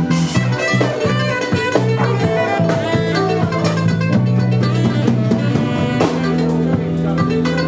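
Live band playing an instrumental number, with drum kit and guitar.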